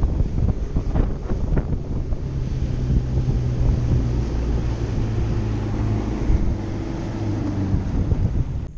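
Strong wind buffeting the microphone on a fishing boat, with a steady low motor hum from a couple of seconds in. The sound cuts off suddenly near the end.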